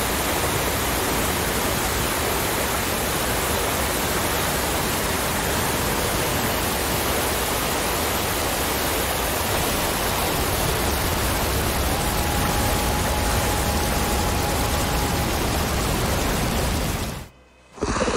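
Waterfall pouring: a steady, even rush of falling water. It cuts off abruptly near the end, dropping to near silence.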